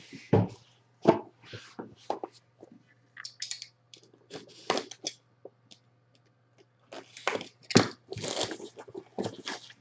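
Trading card pack wrappers being torn open and crinkled, with irregular crackling and rustling bursts. A faint steady low hum sits underneath.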